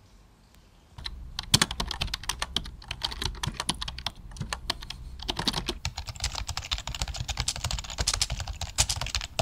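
Typing on a computer keyboard: rapid, irregular key clicks starting about a second in, over a low hum.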